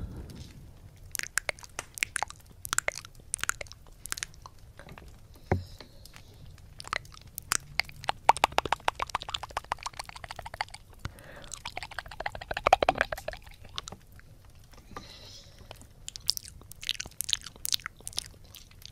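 Wet mouth sounds close on a 3Dio binaural microphone's silicone ear: scattered licks, smacks and sharp clicks, with a run of fast fluttering clicks from a tongue flutter about eight seconds in and another around twelve seconds.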